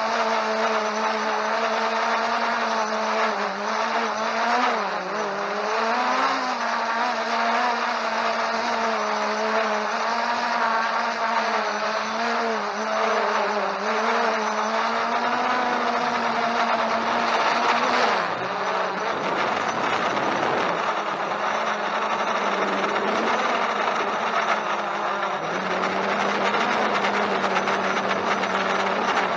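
Holystone HS700D quadcopter's brushless motors and propellers whining steadily while flying in strong wind, the pitch wavering up and down throughout, dipping about 18 seconds in and settling a little lower near the end.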